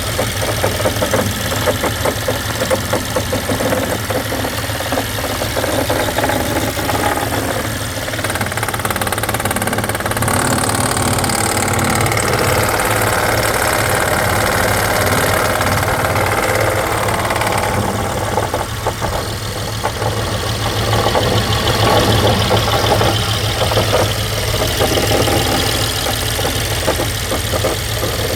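2012 BMW X5's N63 twin-turbo V8 engine running with a fast, continuous rattle, which the owner suspects is timing chain noise.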